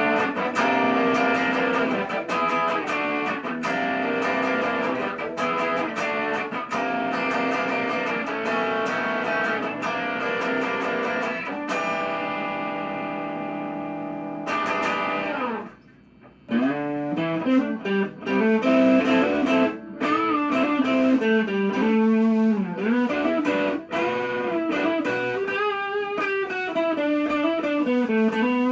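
Gibson Les Paul Special electric guitar with a Bigsby B7 vibrato, played through a Marshall valve amp. Chords are strummed for about fourteen seconds and the last one is left to ring and fade. After a short break, single-note lines follow whose pitch dips and swoops back up, the wavering of the Bigsby vibrato arm.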